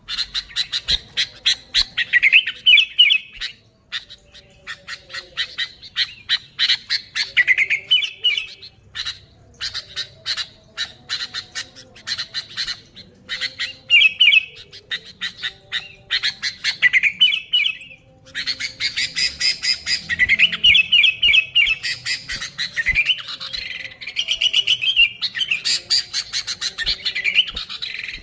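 Sooty-headed bulbul (kutilang) calling vigorously: a dense, rapid chattering of short chirps and warbled phrases, with brief breaks about four seconds in and near eighteen seconds in.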